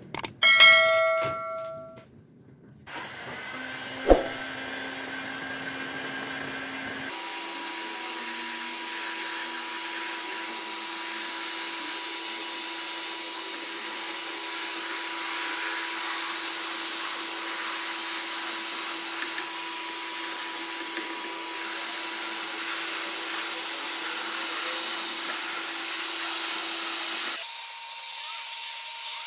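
A short chime with clicks at the start, a subscribe-button sound effect. Then a Bosch heat gun blows steadily with a fan hum for about twenty seconds, heating the old stickers on a cricket bat until they lift; it changes and drops in level near the end.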